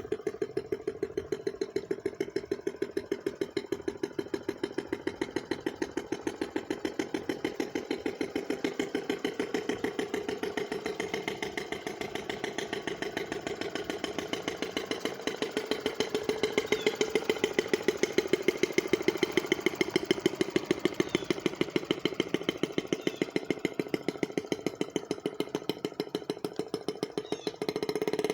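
Gas-powered RC boat's small two-stroke engine running steadily on the water, its buzz growing louder for a stretch about halfway through and then fading back as the boat's distance changes.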